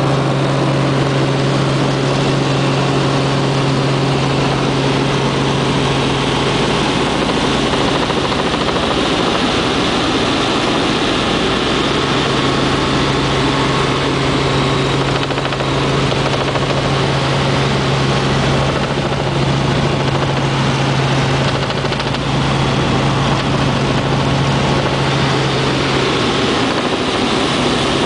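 Helicopter engine and rotor running steadily in cruise, heard from inside the cabin: a loud, unbroken drone with a strong low hum.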